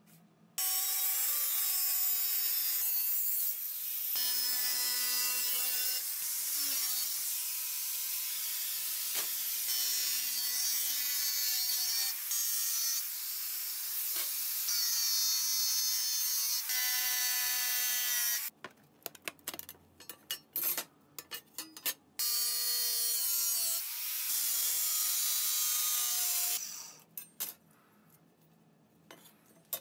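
Handheld power tool cutting stainless steel sheet, running with a whine that shifts in pitch under load over a high hiss. It stops about 18 s in for a few seconds of scattered clatter, runs again for about four seconds, and falls quiet about 27 s in.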